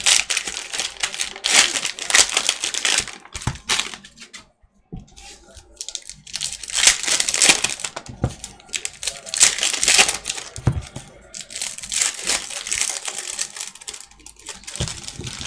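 Plastic wrappers of basketball trading-card packs being torn open and crumpled by hand, crinkling in several bursts with a short pause about four seconds in.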